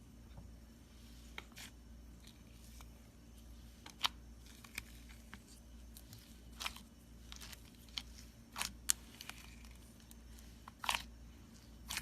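Slime being squeezed and stretched by hand, giving about a dozen short, irregular pops and crackles over a low background.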